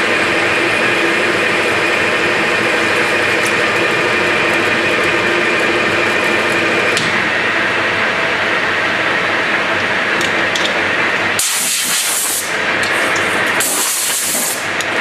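Metal lathe running under automatic feed, its tool taking a heavy roughing cut on the oiled workpiece: steady machining noise with a gear whine. Near the end, two hissing blasts from a compressed-air blow gun, each about a second long.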